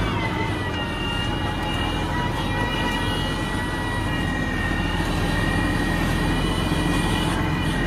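Tractor engine running, its revs dropping at the start and then holding steady at low speed, with a steady high whine over the engine note.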